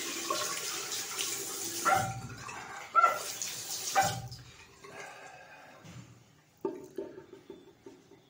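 Water running from a bathroom sink tap. It stops about two seconds in, runs again for about a second, then stops. A few light knocks and clicks follow.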